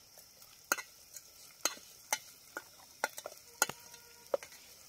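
A spoon stirring onions and chillies frying in oil in a pan. It knocks sharply against the pan every half second to a second over a faint sizzle.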